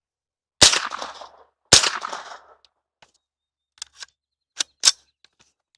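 Two gunshots from a .22LR AR-15-pattern rifle, about a second apart, each with a short echoing tail. Several fainter sharp clicks follow in the second half.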